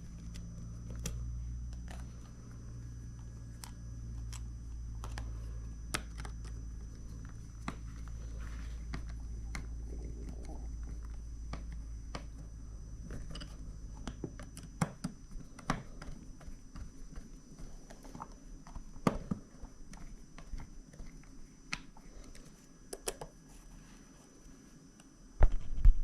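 Small clicks and taps of a plastic work-light housing and its screws being handled and fitted back together, with a low hum for about the first half and a couple of louder knocks near the end.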